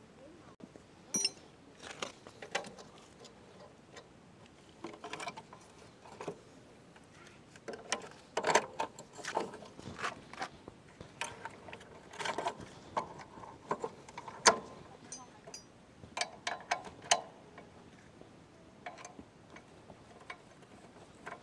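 Irregular metallic clinks, taps and knocks of hand tools and small motorbike parts being handled during a teardown, with a few sharper knocks in the middle.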